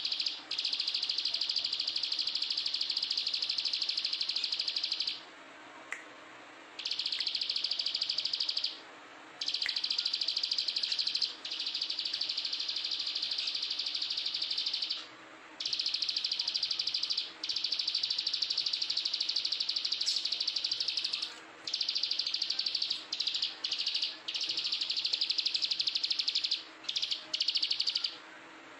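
Plain prinia (Prinia inornata) singing long trills of very rapid repeated notes, in bouts of several seconds broken by short pauses. The bouts turn shorter and more choppy near the end.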